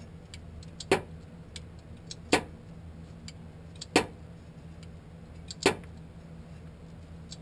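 Single sharp metallic clicks about every one and a half seconds, four in all, with a few fainter ticks between: a ratchet clicking on short back-swings as it tightens the bolt on the vacuum modulator's hold-down bracket on a TH350 transmission.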